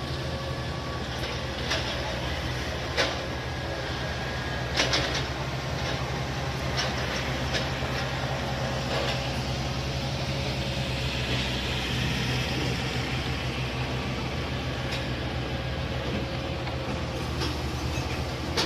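Heavy machine engine running steadily with a low drone, with a few sharp metallic clanks now and then.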